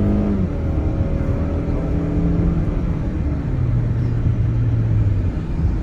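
Car engine running with road rumble, heard from inside a moving car; the engine hum drops in pitch just after the start and settles to a lower steady hum later on.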